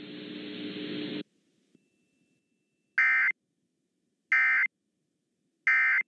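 Emergency Alert System end-of-message signal: three short bursts of two-tone digital data screech, about a second and a quarter apart, marking the end of a tornado warning broadcast. Before them, a hiss with a low hum stops about a second in.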